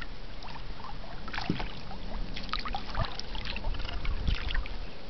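Lake water splashing and trickling in small, irregular patters as a child's hand drags through it alongside a canoe, over a steady low rumble.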